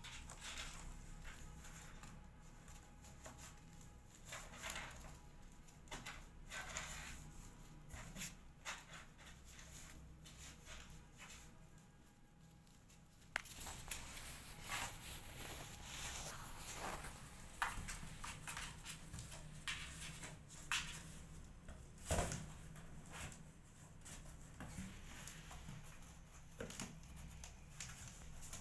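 Kittens' paws and claws scratching and pattering on flattened cardboard as they play, a run of faint, irregular scratches and taps over a low steady hum. About halfway through it gets louder and busier, with a few sharper knocks.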